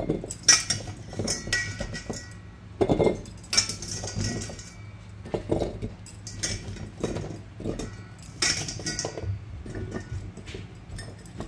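Chunks of cut carrot picked from a metal colander and packed by hand into a glass jar, knocking and clinking against the glass at irregular intervals.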